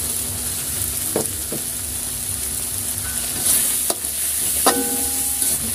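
Ground chilli spice paste sizzling in a metal wok while a spatula stirs it with a few knocks against the pan; one knock near the end rings briefly.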